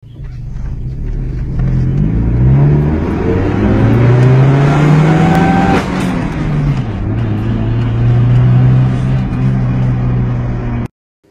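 Kia Sportage 2.0 engine revving hard under acceleration, heard from inside the cabin. The pitch climbs for several seconds, drops at a gear change about six seconds in, then holds steady before cutting off suddenly near the end.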